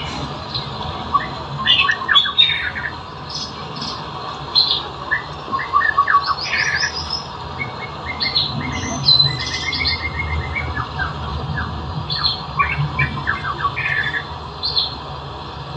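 Bird-like chirps and squawks, coming as short bursts of quick trills at shifting pitches, over a steady low hum.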